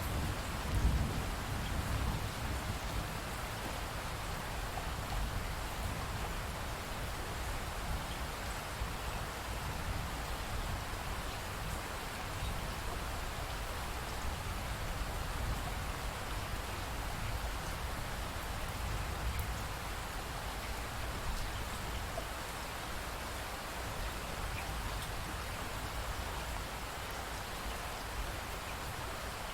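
Steady rainfall: an even hiss of rain falling on surfaces, with a brief low rumble about a second in.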